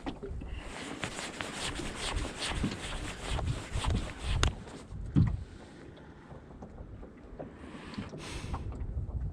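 Sounds aboard a small boat afloat: water slapping the hull with a string of small knocks and clicks, then a quieter stretch, with wind on the microphone.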